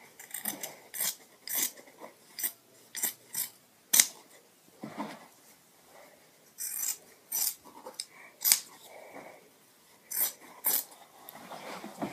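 Scissors cutting through cloth fabric: a series of short snips at an uneven pace, with the sharpest one about four seconds in.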